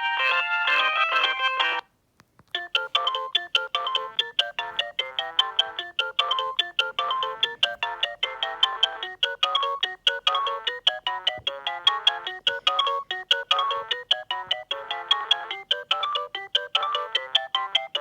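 Alcatel OT-E158 mobile phone ringtones: one melody stops about two seconds in, and after a brief gap another begins, a fast run of short, sharp synthesized notes with several sounding at once.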